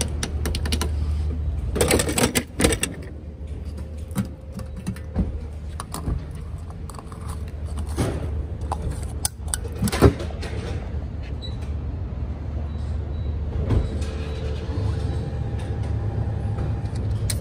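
Steady low vehicle rumble with scattered clicks and knocks, the loudest about 2 seconds and 10 seconds in.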